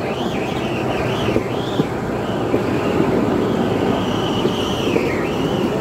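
Motorodillo (motorized rail cart) running along the rails: a steady rumble with many quick knocks and clicks from the wheels on the track, and a high whine that wavers up and down in pitch.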